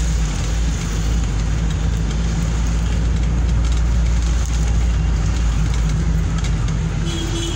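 Vehicle engine running steadily with road noise, heard from on board while driving down a street. A brief horn toot comes near the end.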